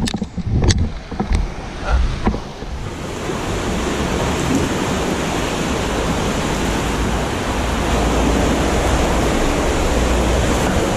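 Fast, shallow river water rushing and churning over rapids around a packraft, a steady noise that grows a little louder towards the end. A few sharp knocks come in the first couple of seconds.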